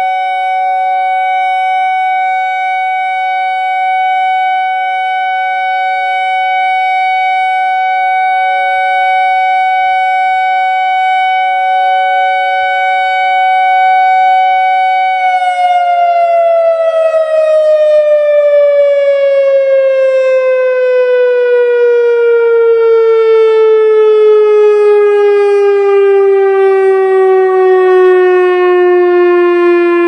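Whelen WPS-2750 electronic storm siren sounding its steady 750 Hz Alert tone. About halfway through, the tone begins a long, steady slide down in pitch as the siren winds down at the end of its 30-second Alert cycle. The uploader says the unit's sound comes from a faulty number-two speaker driver, not weak batteries.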